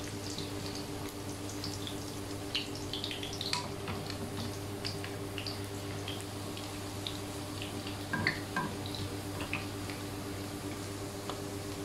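Potato quarters shallow-frying in hot oil in a pan: a steady sizzle with scattered small pops and crackles. Metal tongs turn the potatoes, with a short flurry of light clicks about eight seconds in.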